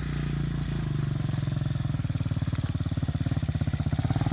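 RPS Hawk 250's single-cylinder four-stroke engine running with a steady, rapid exhaust pulse that grows a little louder. The valves have just been adjusted, and the owner judges the carburettor still a little lean.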